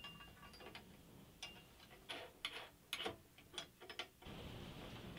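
Faint light clicks and taps of small metal parts and tools being handled on a workbench, followed from about four seconds in by a steady faint scratchy hiss.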